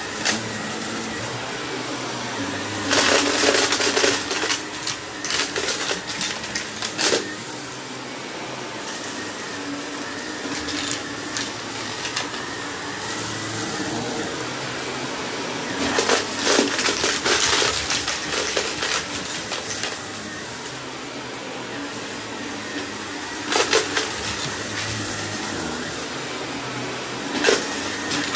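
Shark upright vacuum cleaner running steadily on a shag rug, its motor humming, with bursts of crackling rattle as hidden debris in the pile is sucked up: a few seconds in, again around the middle, and twice near the end.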